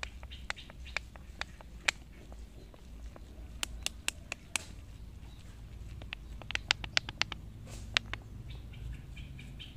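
Small plastic bottle holding water, crushed shallots and detergent being shaken by hand to dissolve the detergent: irregular sharp clicks and taps of the plastic, coming in two flurries in the middle of the shaking.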